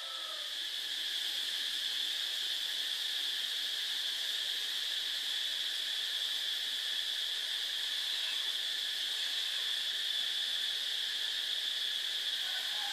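A steady high-pitched shrill drone that never changes, like insects chirring, with no speech or music over it.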